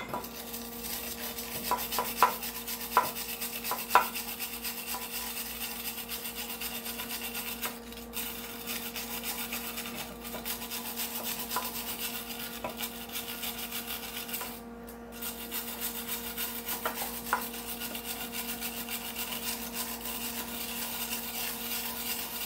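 Hand wire brush scrubbing slag off a fresh flux-core weld on a transfer case bearing, in rapid back-and-forth scratching strokes. A few sharp clicks come two to four seconds in, and the scrubbing stops briefly twice.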